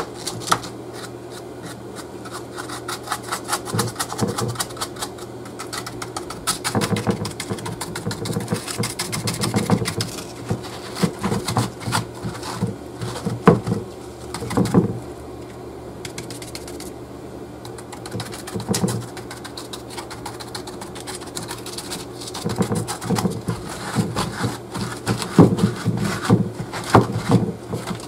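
Paper towel dabbing and rustling against a painted foam sculpture: clusters of quick soft taps and crinkling, with a quieter stretch in the middle, over a steady low hum.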